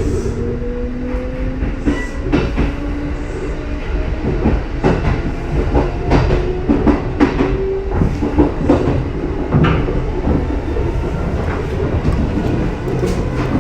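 Kintetsu 2430 series and 1422 series electric train running, its wheels clacking over rail joints in irregular knocks. A motor whine rises slowly in pitch during the first couple of seconds as the train picks up speed.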